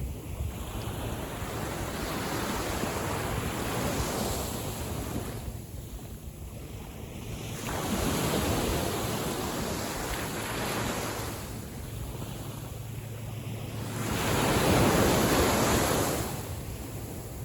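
Small waves of a calm sea breaking and washing in, swelling and falling back in slow surges about every six seconds, the loudest surge shortly before the end.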